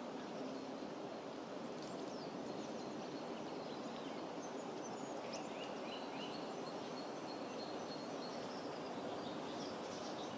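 Faint outdoor ambience: a steady low hiss of background noise with a few faint, short bird chirps now and then.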